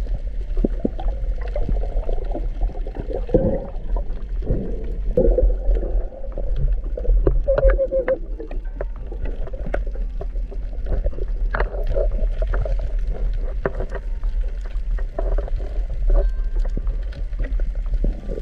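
Underwater sound through an action camera's housing: a steady low rumble of moving water, with gurgling and scattered sharp clicks as gloved hands dig and fan the sand and rubble on the reef floor.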